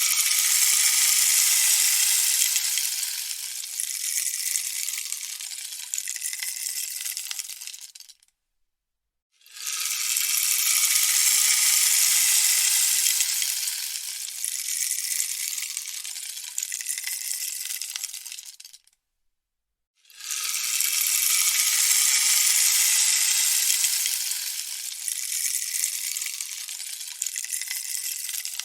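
Rainstick being turned over, its filling trickling down inside in a dense rattling cascade. It is turned three times: each pass starts strong and thins out over about nine seconds, with a second of silence between passes.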